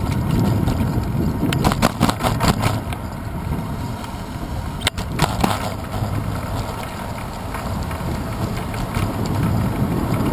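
Wind rumble and road vibration picked up by a handlebar-mounted GoPro Hero 2 on a moving bicycle, with clusters of sharp rattling knocks about two seconds in and again around five seconds.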